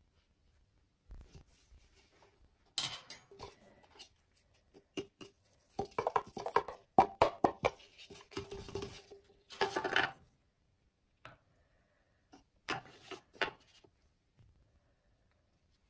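Spatulas scraping and tapping on the stainless-steel cold plate of a rolled ice cream machine, with knocks from handling a paper cup, in irregular clusters that are busiest in the middle.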